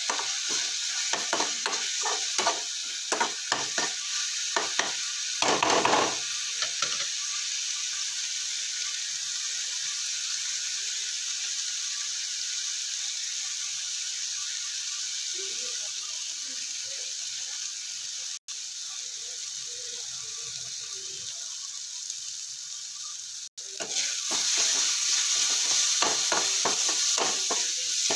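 Onion-tomato masala sizzling in oil in a steel kadhai, with a perforated steel spoon scraping and clinking against the pan as it is stirred. The stirring stops for a long stretch in the middle, leaving only the sizzle, and starts again near the end.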